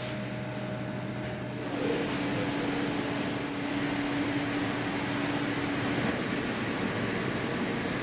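Steady hum of bakery machinery and ventilation fans. A low steady tone gives way to a higher one about two seconds in, and that tone stops about six seconds in.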